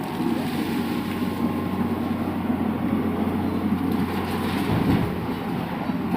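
Heavy diesel machinery running steadily with a constant low hum and rumble, typical of an excavator working or a dump truck standing by at a loading site.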